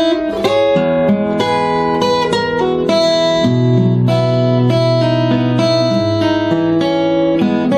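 Acoustic guitar in open D tuning with a capo at the second fret, playing a melody of plucked, ringing notes over held bass notes.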